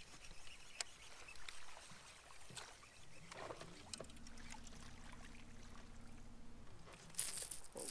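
Fishing reel being cranked, a faint steady whir with fine ticking, as a small spotted bass is reeled in, then a louder splash of water near the end as the fish is pulled to the surface. Scattered small clicks of the rod and tackle around it.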